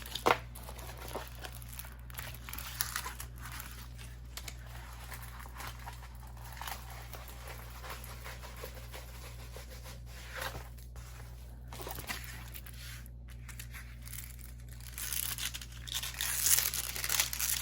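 Crinkling and rustling of a diamond painting canvas and its plastic film being handled, in scattered short bursts that grow busier and louder near the end. A steady low hum lies underneath.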